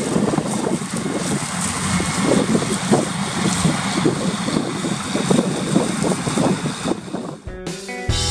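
Tractor and trailed Dewulf Mega 3000 potato harvester running in the field, a steady mechanical rumble with irregular rattling and wind buffeting the microphone. Near the end it cuts off and guitar music starts.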